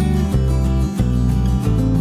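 Background music led by acoustic guitar, strummed and changing chords about every half second.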